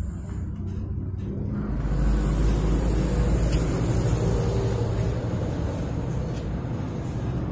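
Steady low rumble of a motor vehicle engine running, with a hiss on top, growing louder about two seconds in and then holding.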